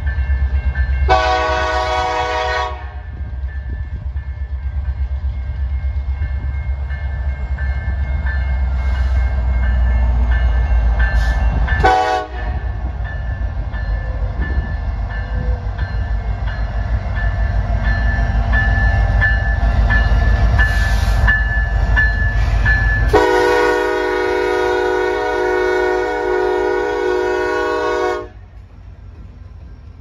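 EMD SD70M-2 diesel locomotive sounding its multi-chime air horn: a blast of about a second and a half near the start, a brief toot near the middle, and a long blast of about five seconds near the end. Between the blasts the locomotive's engine and wheels give a deep, steady rumble.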